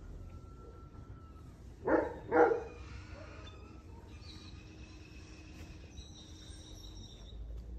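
A dog barks twice, short and loud, about two seconds in, the barks half a second apart. Later a faint, high, steady call runs in the background.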